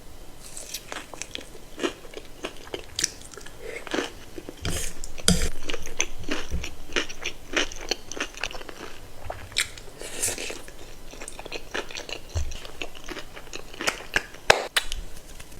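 Close-miked eating sounds: bites and chewing of crispy fried chicken, with sharp crackling crunches throughout and denser bursts of crunching twice, around a third and two thirds of the way through.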